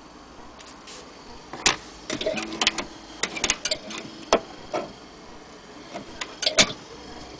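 Metal clicks and clinks from the HMV Model 102 portable gramophone's chrome tone arm and motorboard fittings being handled: an irregular run of knocks, some with a brief ring, starting about a second and a half in, with the sharpest near the start of the run and near the end.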